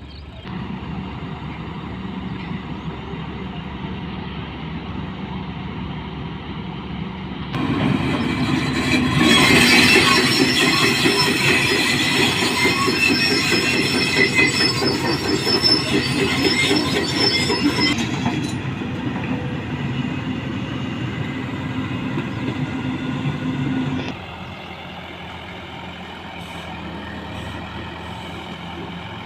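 Heavy diesel construction machinery running steadily. About eight seconds in it turns into a loud stretch of metallic squealing and grinding, which eases after about ten seconds and drops away a little after twenty seconds.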